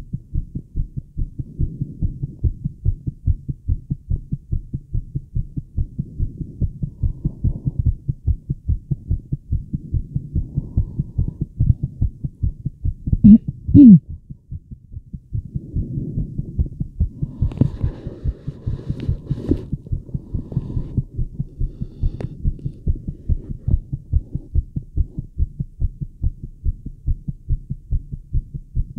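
A fast female heartbeat heard through a Littmann stethoscope pressed to the chest, beating rapidly and evenly. About halfway through, two loud short noises break in, followed a few seconds later by some rustling.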